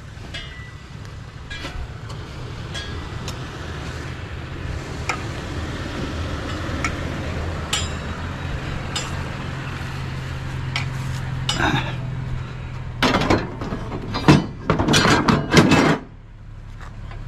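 Metal scrap being handled: scattered clinks, then a run of loud metal clanks and clatters near the end, over a low steady hum.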